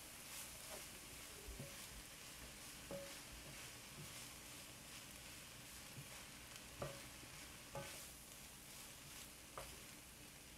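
Stir-fry of chopped chicken, noodles, cabbage and carrots sizzling faintly in a hot sauté pan as a wooden spatula stirs and tosses it, with a few light knocks of the spatula against the pan.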